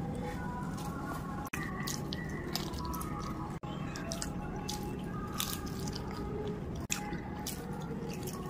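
Close-miked eating sounds: wet squelching as rice is mashed together with spicy chicken curry by hand, then bites and chewing, heard as a run of short clicks and crackles over a steady low hum.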